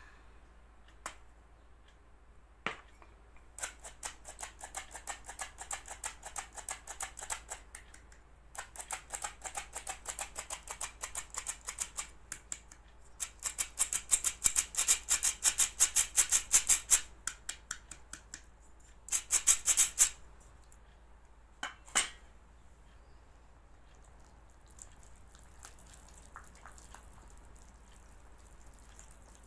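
Squeeze-handle metal flour sifter being worked: bursts of rapid rasping clicks as the handle is squeezed over and over, in four runs of a few seconds each, the loudest in the middle. A single click follows, then it goes quiet.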